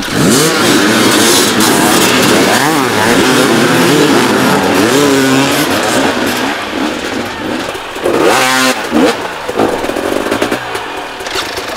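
Hard enduro motorcycle engine revving hard, its pitch rising and falling over and over as the rider works the throttle, with a sharp climb in revs about eight seconds in.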